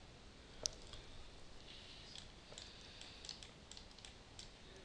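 Faint computer mouse clicks over quiet room tone, one sharper click about two-thirds of a second in and a few softer ones later.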